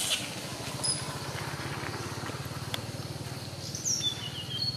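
Outdoor ambience with a steady, low, rapidly pulsing hum, one small click, and a few short high chirps near the end.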